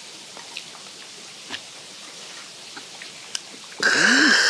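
Quiet eating sounds: chewing and a few light clicks of chopsticks and dishes. Near the end a man lets out a loud, breathy 'kha' about a second long, with a brief rise and fall in pitch, after gulping a bowl of makgeolli.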